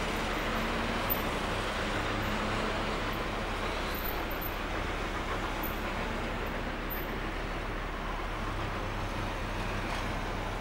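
Steam locomotive 3112, a NSW C32-class 4-6-0, working a passenger train at low speed as it approaches, giving a steady, even rush of exhaust and running noise.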